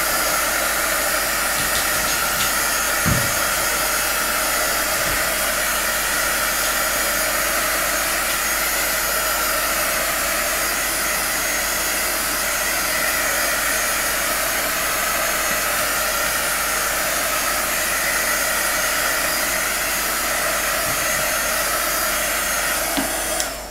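Handheld heat gun running steadily, its fan blowing hot air over wet acrylic paint; it switches off just before the end.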